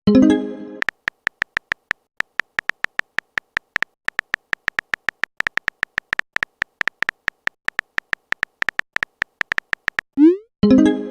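Text-messaging sound effects: a long run of irregular typing clicks, about four to five a second. A short rising pop and a brief pitched message tone come at the start and again near the end.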